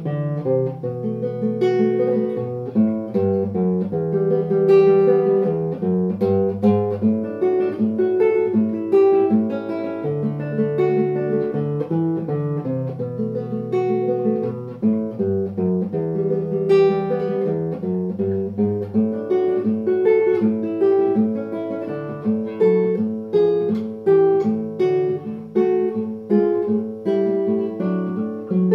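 Solo nylon-string classical guitar played fingerstyle: a steady run of plucked melody notes over held bass notes.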